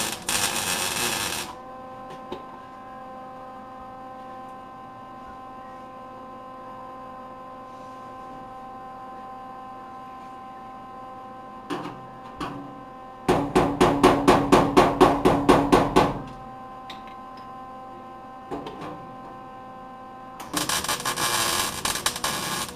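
MIG welder arc crackling as a sheet-steel patch panel is stitch-welded: one bead of about two seconds at the start and another near the end. In between come about a dozen quick metal taps, roughly four a second, lasting about three seconds. A steady electrical hum runs underneath throughout.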